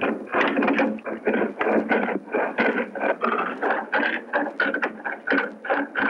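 Rhythmic strokes of a hand tool working a turned wooden spindle, about three to four strokes a second in an even pattern.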